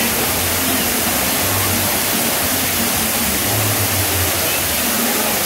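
Artificial waterfall pouring down a rock wall onto people and a shallow pool: a steady rush of falling, splashing water.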